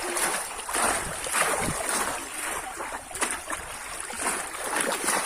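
Water splashing and sloshing, with a few sharper splashes standing out from a steady wash.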